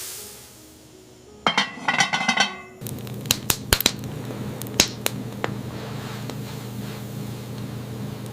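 Cookware clinking: a quick run of ringing knocks, then scattered sharp clicks over a steady low hum.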